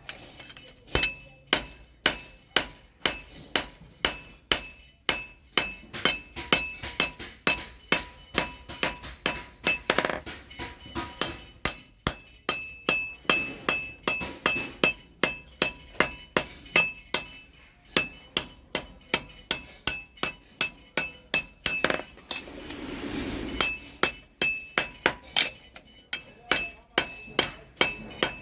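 Hand-hammer blows on steel at an anvil while a bellhook machete is forged, about three strikes a second, each one ringing. Past the middle the hammering pauses briefly under a short rush of noise, then starts again.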